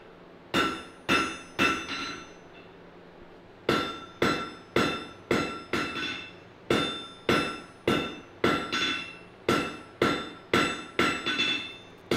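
Blacksmith's hand hammer striking red-hot iron held in tongs on an anvil, each blow ringing. Three quick blows, a pause of about two seconds, then a steady run of blows about two a second: hand forging.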